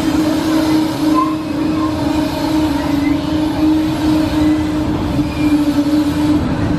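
Soriani & Moser Sombrero ride running, a steady droning hum over a rumbling, rattling noise.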